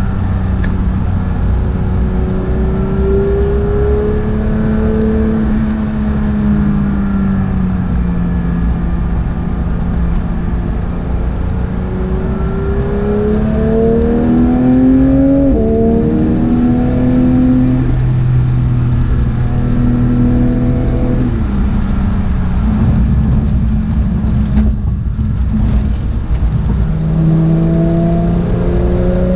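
Porsche 911 GT3 (992) flat-six heard onboard under hard driving. It rises in pitch through the gears, with a quick upshift about halfway through. It drops in pitch as the car slows, then builds again near the end.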